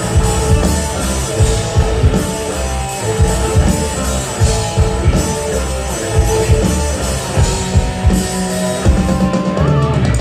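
Live rock band playing an instrumental passage: drum kit beating steadily under electric guitar and bass, with no singing.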